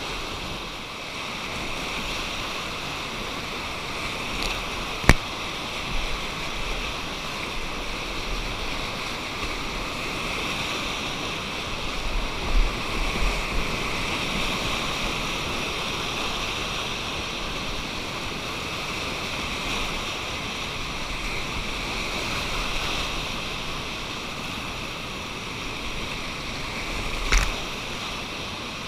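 Whitewater river rapids rushing steadily, with uneven low thuds. A sharp knock about five seconds in and another near the end.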